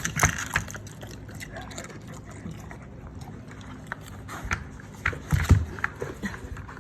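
Dog nosing and mouthing a treat puzzle toy, making irregular clicks and knocks, with a louder thump a little past five seconds in.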